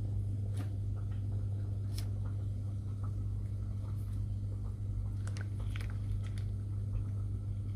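A steady low hum, with a few soft clicks and crackles from handling the plastic wrapper as melted dark chocolate is squeezed out onto the caramel layer.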